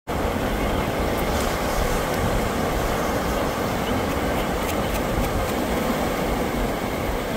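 Sea waves breaking and washing up a pebble beach: a steady rushing noise with a strong low rumble.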